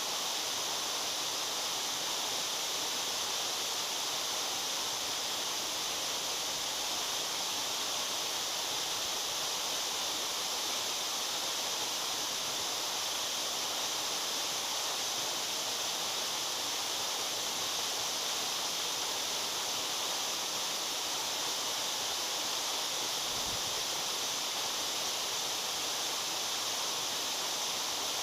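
Waterfall: water falling and splashing steadily, a constant rushing hiss with most of its energy high up.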